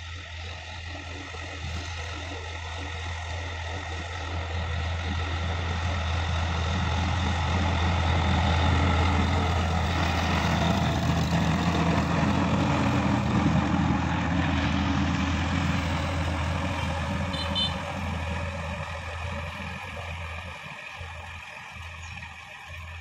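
Sonalika DI-50 RX tractor's diesel engine running steadily under load while its rotary tiller churns through dry soil. The sound swells to its loudest about halfway through as the tractor passes close, then fades as it moves away.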